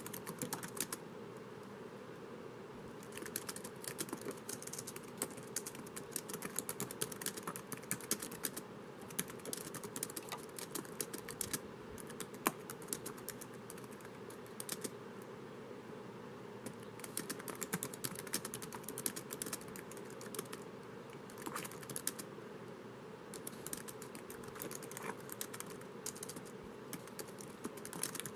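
Typing on a laptop keyboard: rapid runs of soft key clicks in bursts, with short pauses between them.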